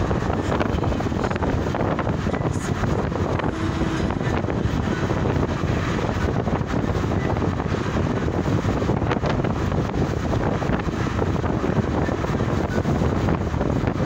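Steady wind rush and road noise from a moving car, with wind buffeting the microphone.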